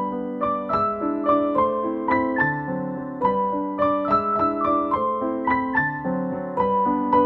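Background piano music: a gentle melody of single notes struck about three times a second, each fading out, over sustained lower chords.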